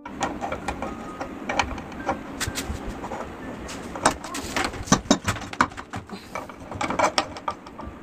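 Irregular metal clicks, knocks and scraping as a flat steel strip is set into a lever-operated hand bending jig and bent, with the sharpest knocks about four and five seconds in.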